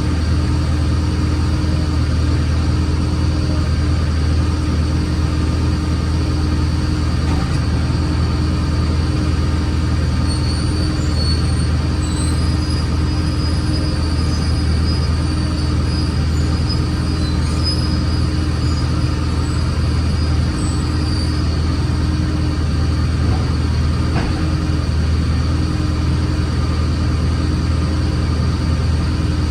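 A heavy vehicle's engine running with a steady low drone and rumble. Faint high whistles come and go near the middle.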